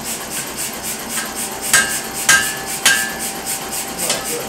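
Blacksmith's hand hammer striking a red-hot bar on an anvil while forging an ornamental leaf: a steady run of blows, about three a second, with a few harder strikes near the middle that ring briefly.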